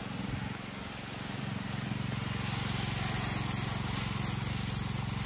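A small tractor's engine running steadily, with the hiss of paddy seed pouring from a sack into a plastic basin over it.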